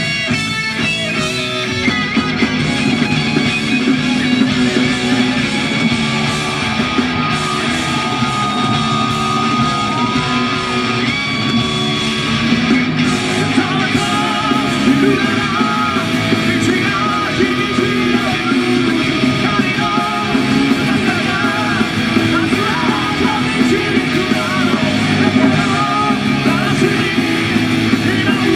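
A heavy metal band playing live, with distorted electric guitars, bass and drums, and a male singer belting into a microphone.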